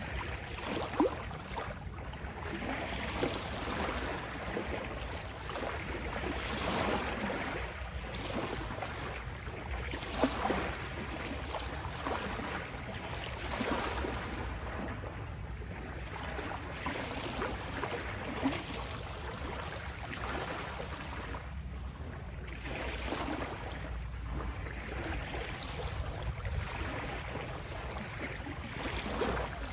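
Small sea waves lapping at the shore, the wash rising and falling every few seconds, with a few sharper splashes.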